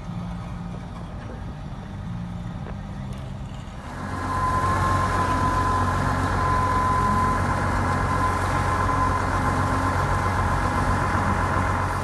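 Heavy machinery engines running steadily, a lower hum at first. About four seconds in, a louder engine drone with a steady high whine takes over.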